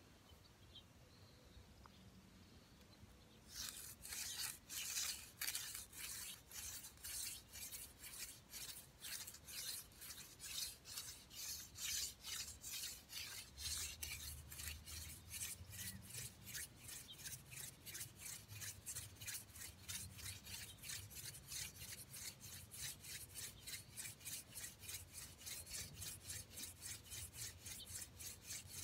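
Hand-drill friction fire: a mullein spindle twirled back and forth between the palms, grinding into a yucca hearth board. After a few quiet seconds it sets in as a dry rasping rub, a fast even rhythm of about three strokes a second, wood grinding on wood to build heat for an ember.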